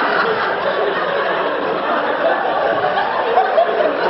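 Audience laughing steadily, a mix of chuckles and laughs from many people.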